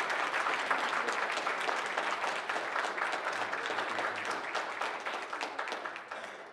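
Church congregation applauding, many hands clapping together, dying away near the end.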